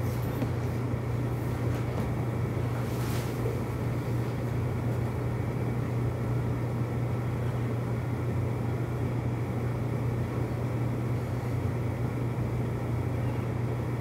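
A steady low mechanical hum with a faint noise bed, unchanging throughout; a faint click about three seconds in.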